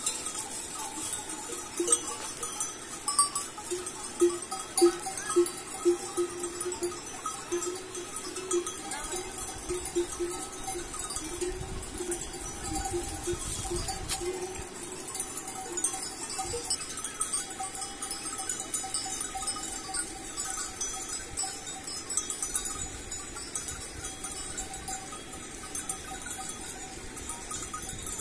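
Bells on a grazing flock of sheep and goats clanking irregularly, several bells ringing at different pitches, with the busiest stretch of strikes in the first half.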